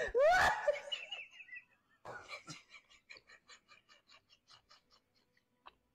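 A cat yowls loudly and wavering for about a second. It is followed by a fading run of quick, short chirps or clicks, about five a second.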